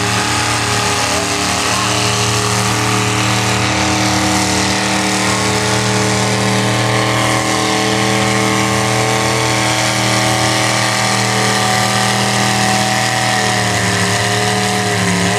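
Pulling tractor's engine running hard at steady, high revs, a loud constant drone, with the pitch wavering and dipping briefly near the end.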